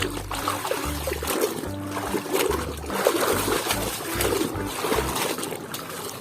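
Water splashing and trickling as a muddy toy vehicle is washed by hand, over background music with a stepping bass line.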